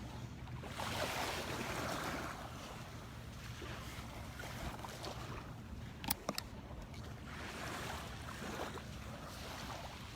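Gulf surf: small waves breaking and washing up the sand in two slow swells, about a second in and again near eight seconds. A low wind rumble on the microphone runs beneath, and a few sharp clicks come about six seconds in.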